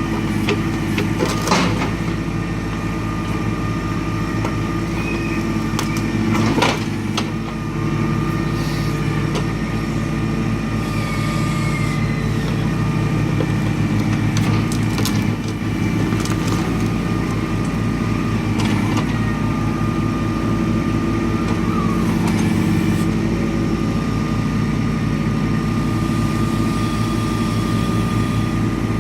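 John Deere 2320 compact tractor's three-cylinder diesel running steadily while the John Deere 46 backhoe digs, with a steady high whine over the engine. Scattered sharp knocks and cracks from the digging, the loudest about a second and a half in and again near seven seconds.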